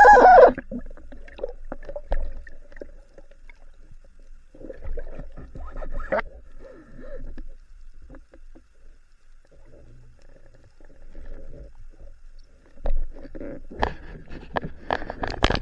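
Muffled underwater sound of water moving, heard with the microphone submerged, broken by scattered sharp clicks and knocks that cluster near the end.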